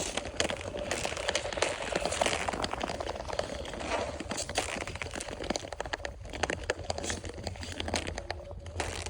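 Thin natural ice, only about 3 cm thick, cracking and crackling under ice skates, with many sharp cracks over the steady scrape of the blades. The ice is cracking quite a lot, a sign of how thin it is.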